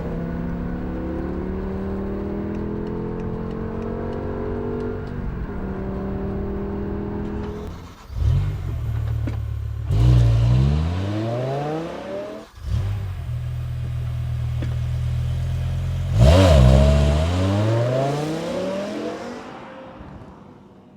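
BMW M5 engine running steadily, then revved hard. A sudden jump comes about eight seconds in, and a climbing rev breaks off briefly past the middle. The loudest surge of revs comes about sixteen seconds in and fades away near the end.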